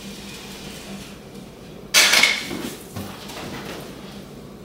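Cork underlayment sheet being split in half and handled: a sharp, noisy crack about two seconds in that fades over about half a second, then a lighter knock a second later.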